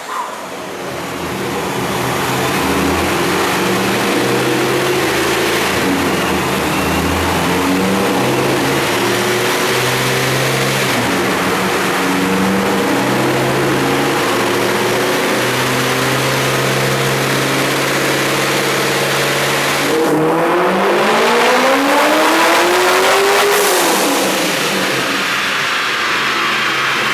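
Corvette V8 running on a chassis dynamometer, holding steady speeds with its pitch stepping up and down. About 20 seconds in it revs up in one long rising pull for about three seconds, then eases off.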